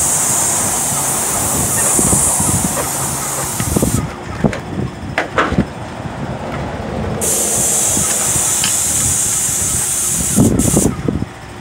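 Airless paint spray gun on an extension pole spraying paint, a steady hiss. It cuts off about four seconds in, starts again about three seconds later and stops briefly near the end as the trigger is released and pulled.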